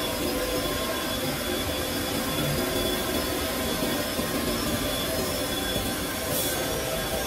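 Four-axis CNC wood router running steadily: an even mechanical drone with several steady whining tones. A brief hiss about six seconds in.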